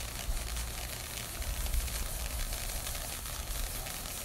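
Ground fountain firework spraying sparks with a steady hiss and fine crackle, over a low rumble.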